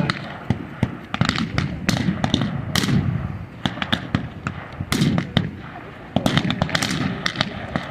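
Scattered small-arms fire with blank rounds during a mock battle: many sharp shots at irregular intervals, some in quick runs, with a few louder reports about three and five seconds in.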